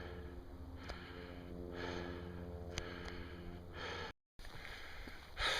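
A hiker breathing hard, a heavy breath about every two seconds over a steady low hum: he is labouring uphill in thin air at high altitude.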